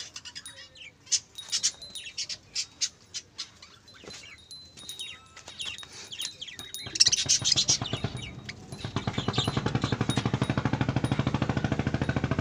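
Budgerigars chirping and chattering in quick high notes, loudest about seven seconds in. Near the end the chirps give way to a steady, fast, even pulsing drone.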